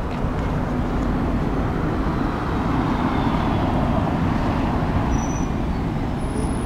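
Road traffic running through a city intersection: a steady low rumble of cars and buses, with one vehicle passing whose sound swells about halfway through and then fades.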